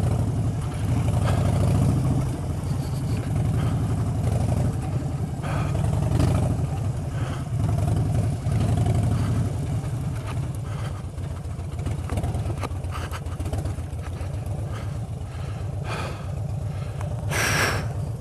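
Harley-Davidson Street Bob's air-cooled V-twin running at low revs as the bike crawls over a rough stony track, with rattles and clatter from the bumps. The engine is louder in the first half and eases off after that, and a short sharp higher noise comes near the end.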